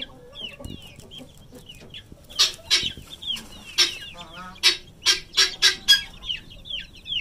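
Chicks peeping over and over in short falling chirps. A run of short, louder sounds comes in the middle.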